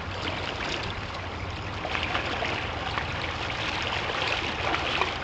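River water running steadily over rocks, a continuous rush with small splashes and trickles.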